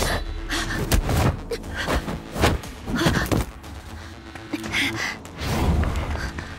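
Action sound effects of a fight: a fast, irregular run of thuds, slams and impacts.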